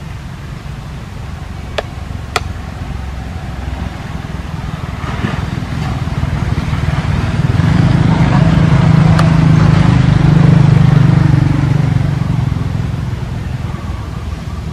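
A motor vehicle's engine passing on the road, growing louder to a peak about two-thirds of the way through and then fading away. Two sharp clicks sound about two seconds in.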